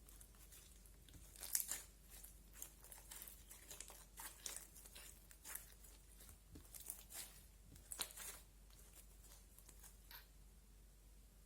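Pudding-textured slime being worked by hand, giving an irregular run of small sticky crackles and pops. The crackles start about a second in and die away near the end.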